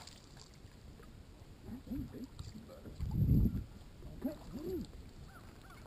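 Water lapping against the boat hull, with a low rumble about three seconds in and faint distant goose honks near the end.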